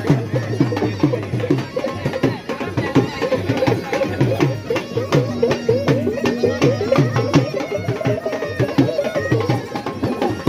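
Traditional folk-style music with a fast, steady drum beat, sharp percussion strokes and a wavering melody line.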